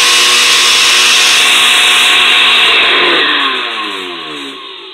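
A 10-speed Osterizer blender's motor runs loud and steady at speed. About three seconds in it is switched off and spins down, its whine falling in pitch and fading as it slows.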